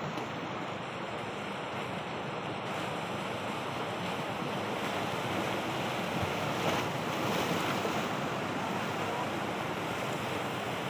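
Sea surf washing against shoreline boulders, a steady rushing noise that swells a little about halfway through, with wind buffeting the microphone.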